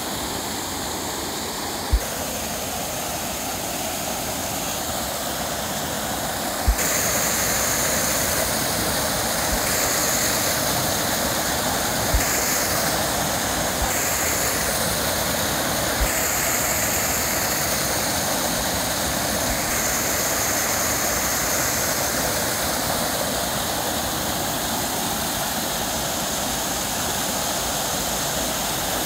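Small waterfall pouring onto rock into a pool, a steady rushing, splashing roar of falling water that gets a little louder about seven seconds in. A few brief low thumps stand out now and then.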